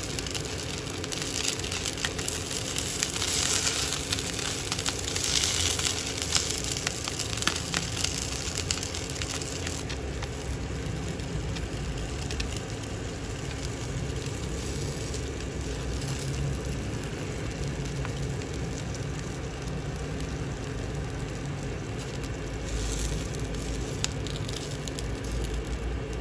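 Pan-fried dumplings sizzling in hot oil in a nonstick frying pan, a steady crackling hiss with small pops of spattering oil, strongest in the first several seconds.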